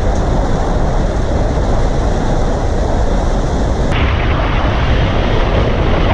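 Wind rushing over a GoPro Hero 5's microphone held out of a moving car's window: a loud, steady rumble and hiss. About four seconds in the sound changes abruptly and the hiss grows brighter.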